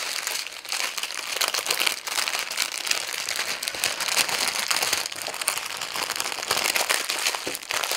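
Clear plastic packaging crinkling and rustling as it is handled, a dense, unbroken stream of small crackles.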